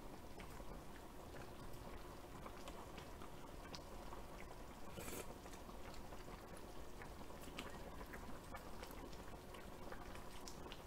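Spicy Korean braised chicken stew simmering in a wide pot: faint, irregular bubbling and popping, with one louder short burst about five seconds in.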